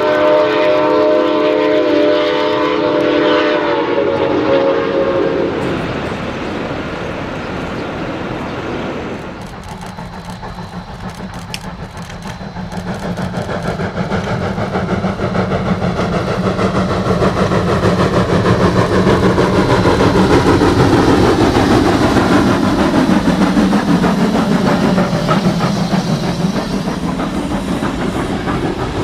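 A steam locomotive's chime whistle sounds a chord of several notes for about five seconds, then fades. Then a steam train passes close by, its passenger cars rolling past with the wheels clicking over the rail joints, growing louder toward the end.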